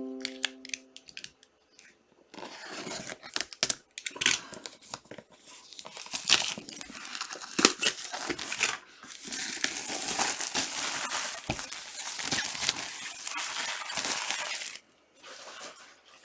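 Plastic wrapping being torn and crinkled off a trading card box: a long run of rustling and ripping with sharp crackles, stopping shortly before the end.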